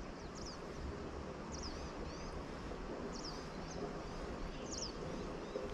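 Small birds chirping, short high calls often in quick pairs, repeating every second or so over a steady outdoor background hiss.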